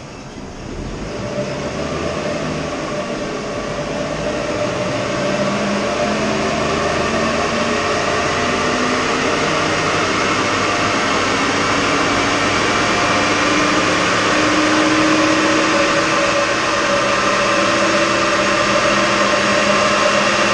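Rebuilt Ford 4.6 V8 in a Mercury Grand Marquis driving its rear wheels on a roller chassis dyno while the new engine is run in. The sound of engine, drivetrain and spinning rollers builds over the first few seconds into a steady drone, and its several tones creep slowly upward in pitch as speed rises.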